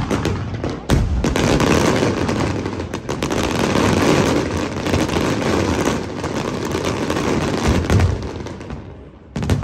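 Fireworks barrage: many shells and effects going off at once in a dense, continuous crackle of bangs. It starts with a sharp burst and thins out near the end.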